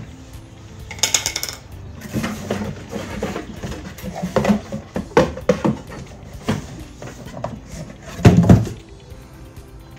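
Cardboard box rustling and a hollow plastic tank knocking against it while being unpacked: irregular rustles and clunks, with the loudest thump a little after eight seconds in.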